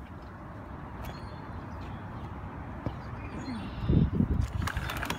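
A door clicking, faint bird chirps from outside, then loud, irregular low thuds and rumbling from about four seconds in as the microphone is jostled going down the outdoor steps.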